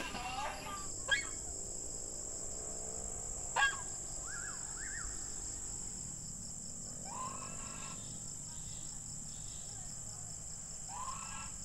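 Insects chirring in a steady high-pitched drone, with two sharp clicks and a few faint short calls.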